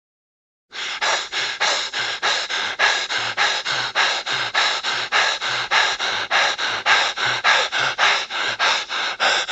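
Rapid, even panting, about four breaths a second, starting just under a second in.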